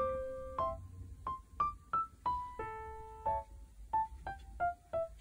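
Background music: a light, bouncy piano tune of single notes and short chords struck a few times a second, each note fading away.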